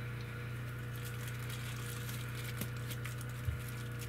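Light rustling and crinkling of a binocular pouch being handled and opened, over a steady low hum, with a single small click about three and a half seconds in.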